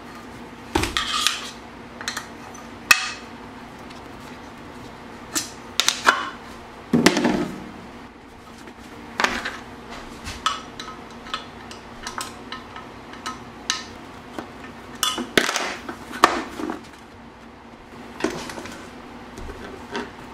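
Irregular metallic clicks and clinks of a hex key, bolts and skate frame being handled while mounting an inline skate frame with large wheels, over a faint steady hum.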